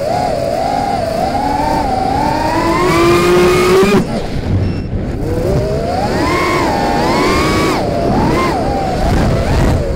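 FPV quadcopter's electric motors whining, the pitch rising and falling with the throttle. The whine drops sharply about four seconds in, then climbs again with quick up-and-down wobbles.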